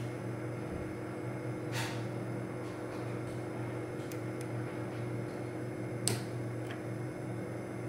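Small sharp metallic clicks from a dimple flag pick working the pins of a Goal V18 high-security dimple lock under tension, two clearer clicks about four seconds apart with fainter ticks between, over a steady low hum.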